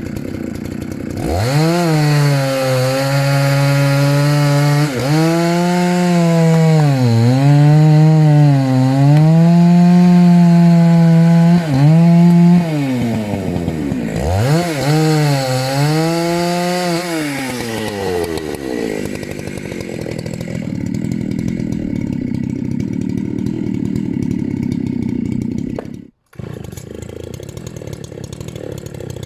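Dolmar PS-9010 90cc two-stroke chainsaw revved to full throttle and cutting wood, its pitch sagging and recovering again and again as the chain bogs in the cut. It lets off and revs into a second cut, then drops back to a steady idle, with a brief gap near the end.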